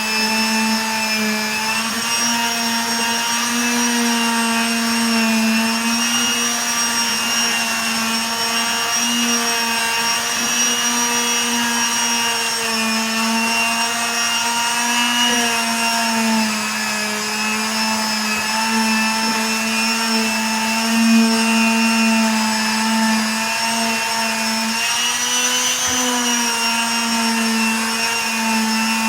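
Electric power tool motor running steadily with a whine, its pitch wavering slightly and dipping briefly near the end as it is loaded.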